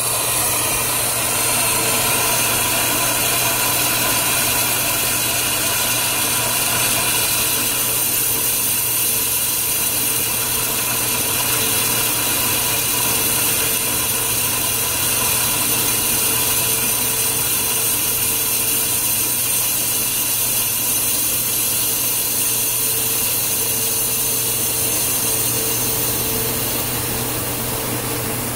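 Steam hissing steadily out of the outlet of a Dunham No. 1 steam trap with a MEPCO 1E diaphragm, blowing through because the trap has not yet sealed up; the hiss eases slightly near the end as it nears sealing.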